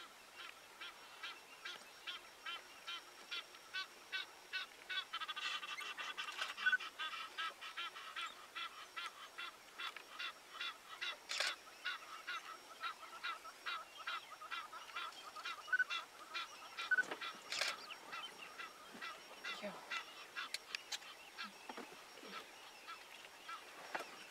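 A pack of African wild dogs at a fresh kill keeps up a constant chorus of high, bird-like twittering calls, several a second, with a few louder calls standing out. A couple of sharp clicks come through near the middle.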